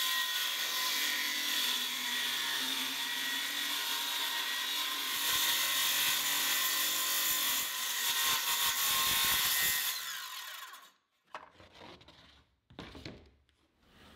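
Makita 6.5-inch cordless circular saw, fitted with a 40-tooth finish plywood blade, ripping a long cut down a plywood sheet, a steady whine of the blade in the wood. About ten seconds in the trigger is released and the motor winds down, followed by a few faint knocks.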